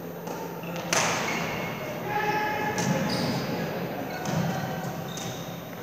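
Badminton rackets striking a shuttlecock in a doubles rally: a loud crack about a second in and fainter hits later, with short high squeaks from shoes on the court floor between them.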